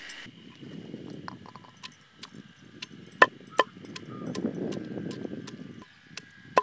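Wooden pestle pounding and grinding garlic in a stone mortar: a rough crushing noise with scattered sharp knocks, the two loudest a little past three seconds in.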